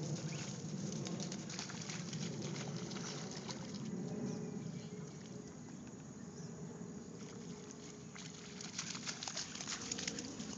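Running footsteps through wet grass: a steady rustling patter, with a cluster of sharper crackles near the end.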